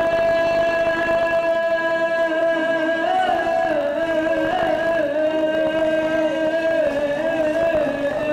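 Live traditional Minangkabau dance music: a single melodic line held almost without a break, wavering slightly in pitch, over the whole stretch.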